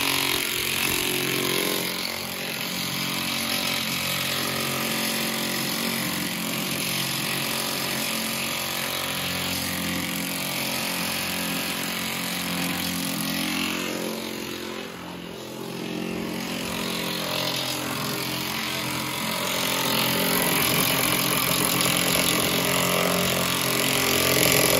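Milwaukee cordless impact wrench running almost without pause as it backs out bolts near a pickup's gas tank, dipping briefly about halfway through.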